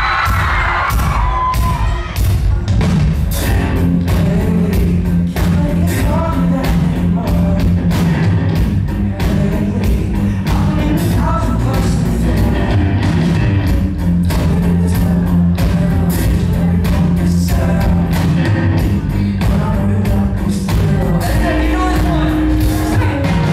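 Live band playing a pop-rock song: drum kit, bass and electric guitar, with a male singer singing into a microphone, heard from the audience in a concert hall.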